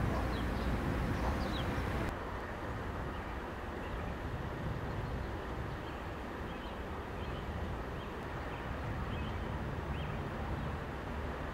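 Diesel locomotives running at low throttle in a rail yard, a steady low rumble, with small birds chirping now and then over it.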